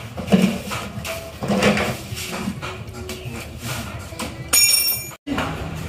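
Workshop clatter: scattered knocks and metallic clinks, with a short high-pitched tone about four and a half seconds in, then a sudden cut.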